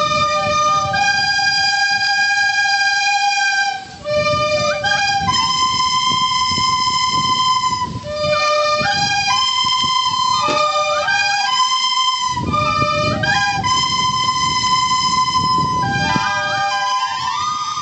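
Background music: a single melody instrument plays held notes with short slides between them over a lower accompaniment, with brief breaks about four and eight seconds in.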